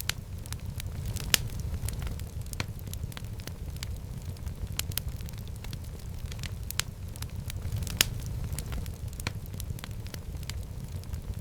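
Wood fire burning in a fireplace: a steady low rumble of the flames with irregular crackles and snaps, two sharper pops standing out, one early and one about eight seconds in.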